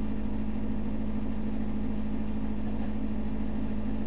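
Steady hum with a droning tone, the constant background of the recording, with faint scratches of a pencil on paper over it.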